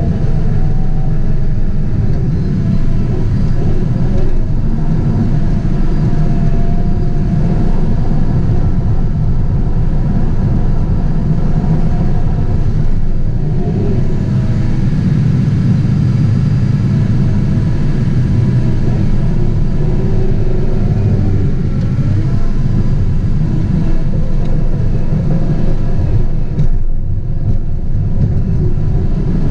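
Caterpillar 973C track loader's diesel engine running under load while it pushes brush, heard from inside the cab: a loud, steady, low drone with a wavering higher whine above it.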